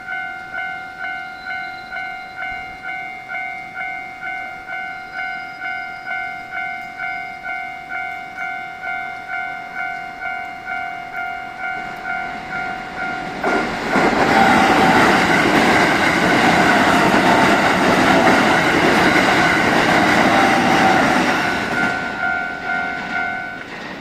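Japanese level-crossing warning bell ringing about twice a second. About halfway through, an eight-car Keikyu 2100-series train passes through the crossing at speed, its noise drowning the bell for about eight seconds. The bell comes back as the train clears and stops near the end.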